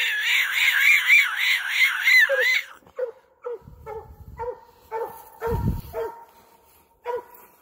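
Hound barking at the tree in a steady chop, about two barks a second, marking the treed game. For the first few seconds a loud, high, wavering whine-like cry runs over the barking, and the barks go on after it stops.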